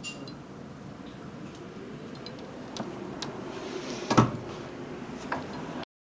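Handling noise from a handheld camera: a steady low rumble with a few sharp clicks and knocks, the loudest about four seconds in, before the recording cuts off abruptly near the end.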